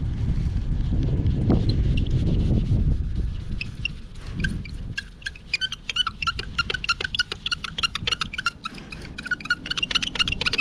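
Blue foam applicator pad with 9800-grade liquid compound rubbed in quick strokes over glossy car paint, squeaking rapidly several times a second from about four seconds in. A low rumble comes before the squeaking.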